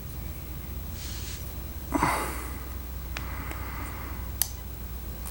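A short, forceful breath through the nose about two seconds in, then a couple of small, sharp clicks, over a steady low hum.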